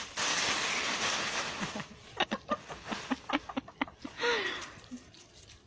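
Dry fallen leaves rustling as they are pushed into a pile, then crackling in a run of short, sharp crunches. A brief call rises and falls about four seconds in.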